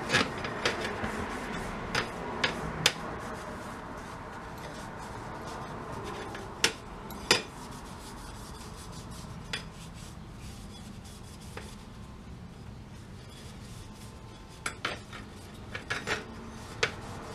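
A rag rubbing a stripped gumball machine part down with denatured alcohol, with scattered hard clinks and knocks as the part is handled, in small clusters near the start, in the middle and near the end.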